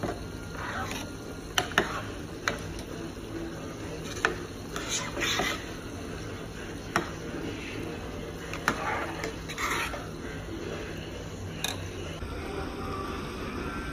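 A spoon stirring thick dal in a metal pressure cooker, scraping against the pot in three bouts with a few sharp clinks of the spoon on the metal rim. A steady low hum runs underneath.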